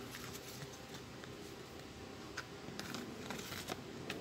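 Plastic housing of a Bosch angle grinder being handled and its rear cover fitted back on: quiet rubbing with a few short clicks in the second half.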